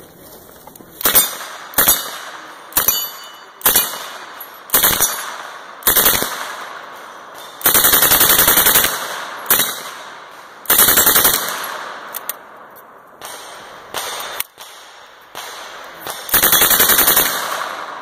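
Lage MAX-11 mkII submachine gun, an open-bolt gun with a full-auto-only trigger, firing about fifteen bursts of automatic fire. Most bursts are brief; three of them, a third of the way in, near the middle and near the end, run for about a second.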